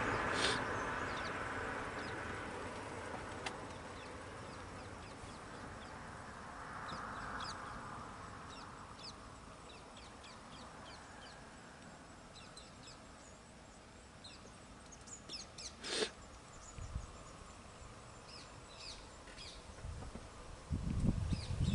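Forest birds calling, many short high chirps scattered throughout. A vehicle's noise fades away over the first few seconds, a single sharp sound comes about three quarters in, and a low rumble starts near the end.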